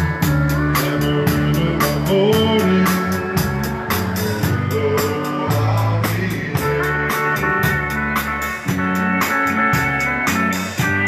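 A Czech dance band playing live, with a steady drum beat under bass and sustained instrument notes.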